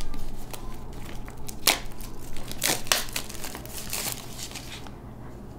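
Clear plastic shrink film being peeled and pulled off a small cardboard box, crinkling and crackling in irregular snaps. It is loudest around the middle and grows sparse near the end.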